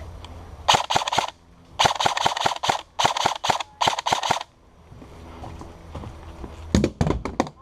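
Airsoft gun firing in rapid strings of shots: four bursts close together in the first few seconds, then another near the end.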